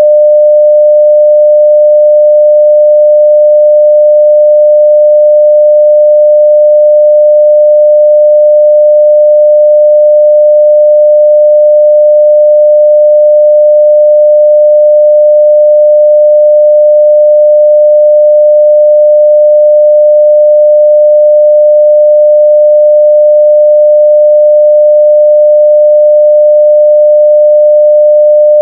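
A pure 600 Hz sine-wave test tone at full level (0 dB), steady and unbroken.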